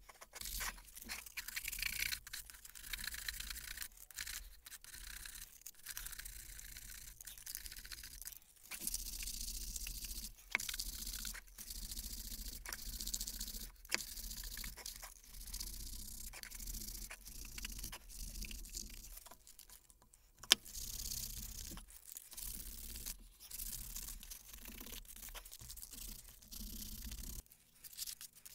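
Sandpaper rubbed by hand over a filler-coated wooden casting pattern, in stretches of quick scratchy strokes with short pauses between them. There is a single sharp knock about twenty seconds in.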